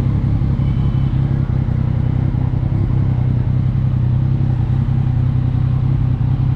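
Yamaha MT-09's 890 cc inline-three engine running steadily through an Akrapovic exhaust, holding an even low pitch with no revving.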